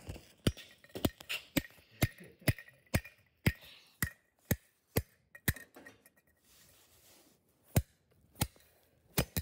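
Steel claw hammer repeatedly striking a toy car on concrete: about a dozen sharp blows at roughly two a second, a pause of a couple of seconds, then three more. The car is chipping and losing paint under the blows.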